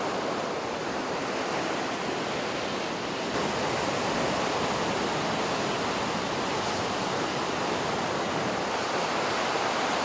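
Steady rushing of water, a little louder from about three seconds in.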